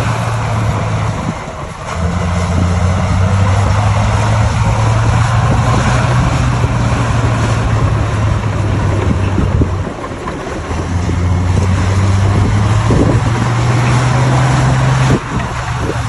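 Bulldozer's diesel engine running loud under load with a low drone, easing off briefly about two seconds in and again around ten seconds, then dropping off abruptly near the end.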